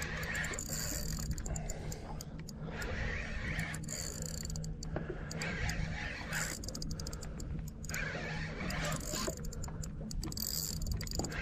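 Spinning reel cranked to retrieve line on a hooked fish, its gears and rotor whirring and clicking in spells of turning.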